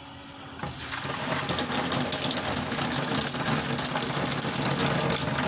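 Water rushing through the pipes of a wall-mounted gas water heater (combi boiler), starting suddenly about half a second in and then running on steadily.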